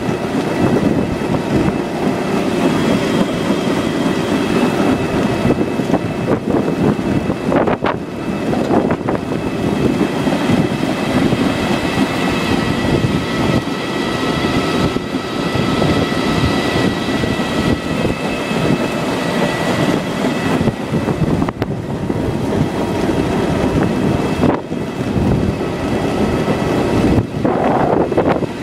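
Koops bulb harvester running in the field, a steady dense clatter of its conveyors and sieves carrying tulip bulbs and clay, with a faint steady high whine over it.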